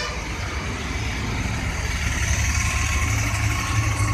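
A motor engine running steadily, a low rumble that grows louder about a second in, with a faint steady whine above it.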